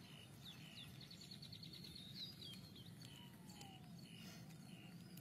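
Faint high-pitched bird chirps over quiet background noise, with a short rapid trill about a second in.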